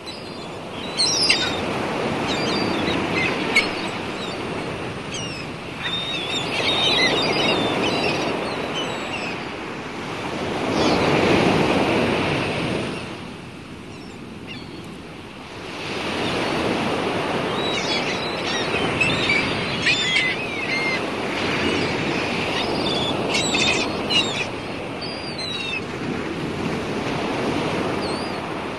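Ocean waves and wind washing in swells that rise and fall, loudest about eleven seconds in, then easing off for a couple of seconds. Short high squeaky calls come and go over the wash.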